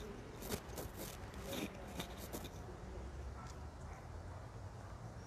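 Handling noise on a phone microphone: several short scratchy rustles and clicks in the first couple of seconds over a steady low rumble of street background.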